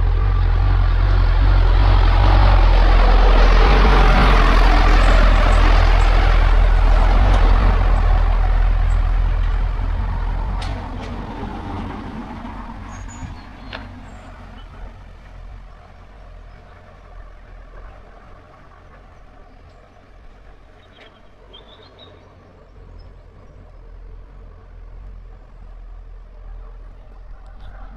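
A road vehicle passes close by: its engine rumble and tyre noise are loud for the first several seconds, then fade away over a few seconds, leaving a quieter outdoor background.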